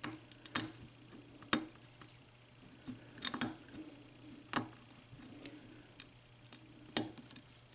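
Sparse, irregular small clicks from a lock pick setting the pin tumblers of a Sargent mortise lock cylinder, about six or seven over several seconds.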